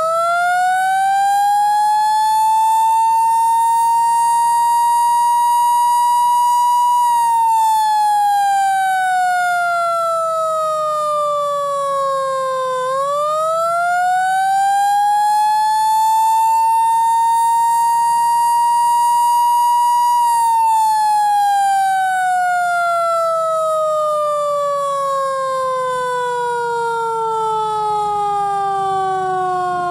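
Federal Q2B mechanical fire-truck siren winding up to a high wail, holding it briefly, then coasting down in pitch. About halfway through it is spun up again to the same high wail, and it then winds down slowly, still falling at the end.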